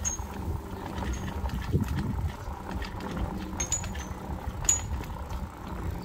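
Outdoor walking ambience: a steady low rumble with a faint steady hum under it, and a few short, high chirps scattered through it.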